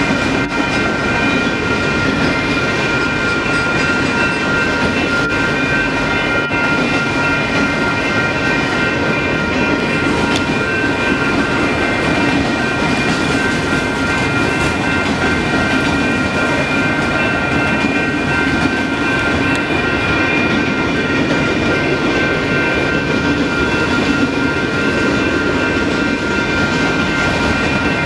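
Union Pacific autorack freight cars rolling past, a steady loud rumble of steel wheels on rail with a constant high ringing tone over it.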